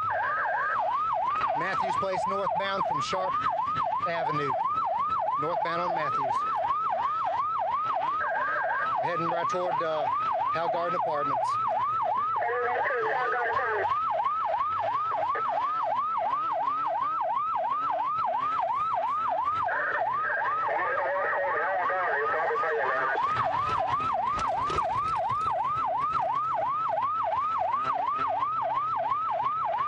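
Police car siren in fast yelp mode, a wail sweeping up and down about two and a half times a second without a break, heard from inside the pursuing patrol car.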